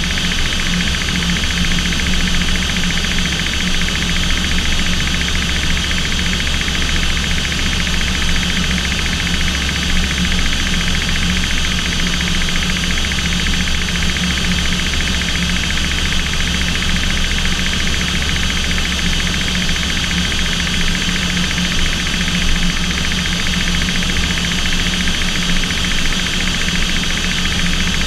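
Aircraft engines running steadily in level flight, heard inside the cockpit: a constant drone with a low hum and a higher whine that hold the same pitch throughout.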